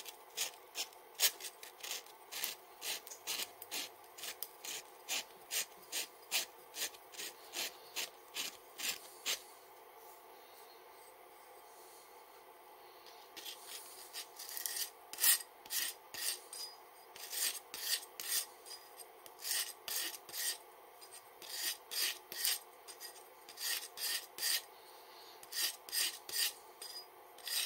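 Hand sanding of a 3D-printed metal case with a sanding sponge and sandpaper: quick back-and-forth rasping strokes, about two a second. The strokes pause for a few seconds in the middle, then start again.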